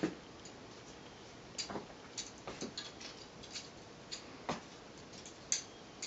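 Faint, irregular light taps and clicks on a cardboard cat tower during play with a feather wand toy, about a dozen in all, the sharpest near the end.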